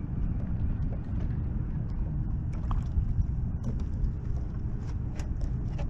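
Wind buffeting the microphone on an open boat at sea: a steady low rumble, with a few faint scattered clicks in the middle.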